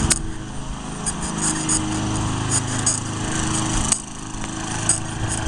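A steady small-engine hum, with light rattling clicks from a bicycle and its front basket rolling over a concrete sidewalk.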